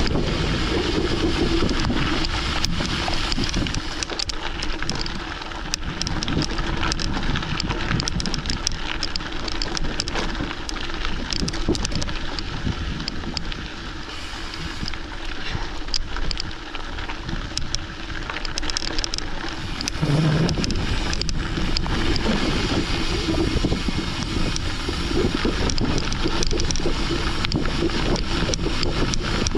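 Wind buffeting the microphone while riding a mountain bike along a gravel forest road, with the tyres and bike rattling and clicking over stones throughout.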